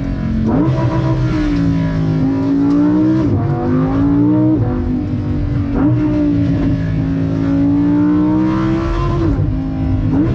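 Lamborghini Huracán Evo's naturally aspirated V10 driven hard, revs climbing and then jumping sharply at each of several quick gear changes.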